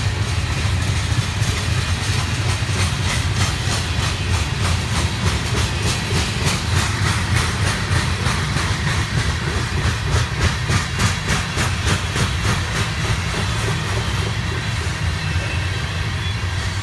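Freight train's covered hopper cars rolling past close by: a steady rumble of steel wheels on rail with an even, rhythmic clickety-clack of wheels over rail joints, which fades near the end.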